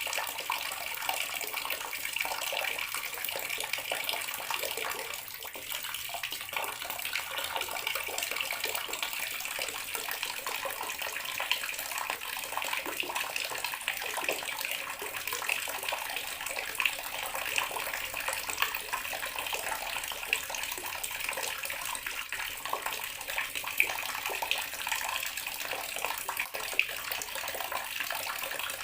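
Bathroom water tap running steadily, water splashing with a constant hiss and an occasional sharper splash.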